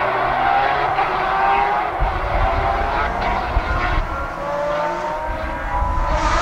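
Peugeot 205 proto rally car's engine pulling hard under acceleration; its pitch climbs and falls back several times as it shifts gear. From about two seconds in, a low rumble of wind buffets the microphone.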